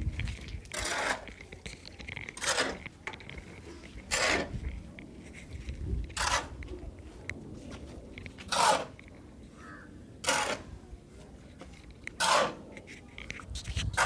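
A hand tool scraping and crunching into loose gravelly material, about eight strokes roughly two seconds apart, each a short, gritty scrape.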